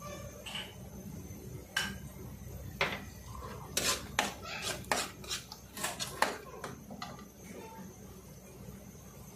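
Steel ladle stirring chicken in sauce in a steel wok, knocking and scraping against the metal. A couple of single knocks come first, then a quick run of clanks for about three seconds, before it settles back to a low steady hum.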